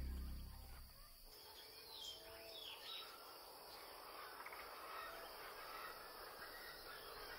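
Background music fades out in the first second. It gives way to faint desert ambience: a steady high insect drone with a few short, scattered bird chirps.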